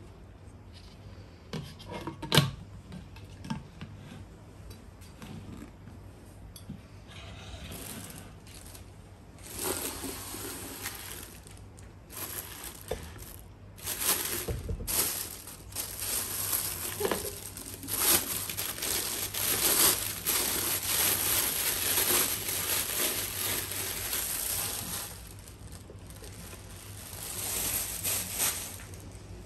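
Packaging being unwrapped and handled: plastic wrapping crinkling and rustling, with a few sharp clicks and knocks. The crinkling gets louder about ten seconds in, carries on for most of the rest, and dies down near the end.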